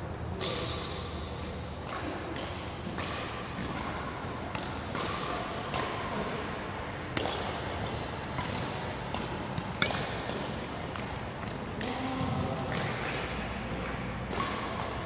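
Badminton rally: sharp racket strikes on the shuttlecock at irregular intervals, with short squeaks of court shoes on the hall floor and a constant background hum echoing in a large sports hall.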